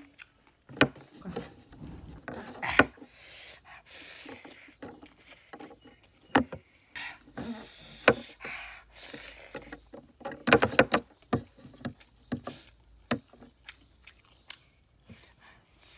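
Close-up eating sounds: wet chewing and lip smacks with irregular sharp clicks, along with fingers mixing rice and curry on a tray.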